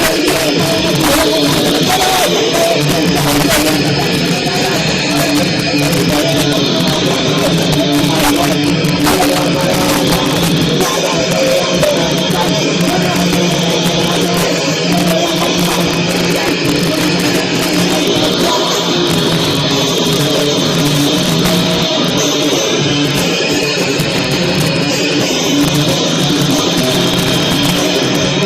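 A live band playing loud, distorted heavy rock with electric guitar, bass and drums, captured by a recording that overloads and muddies the sound.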